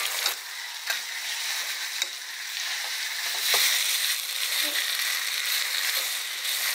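Pounded saba mackerel and nam ngiao chili paste sizzling in oil in a wok, stir-fried until fragrant. A metal spatula turns it, with a few clicks and scrapes against the wok.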